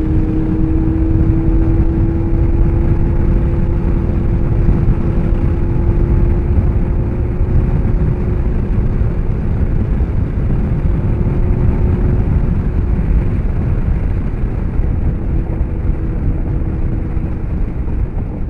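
Motorcycle riding at a steady pace, heard from the pillion seat through a helmet-mounted microphone. Heavy wind rush covers a steady engine note that climbs slightly at first and fades into the wind noise in the second half.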